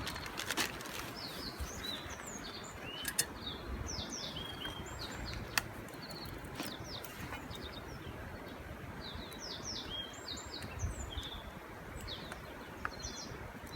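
Small birds chirping outdoors: clusters of short, high, downward-sliding chirps in two spells, over a steady low background hiss, with a few sharp clicks.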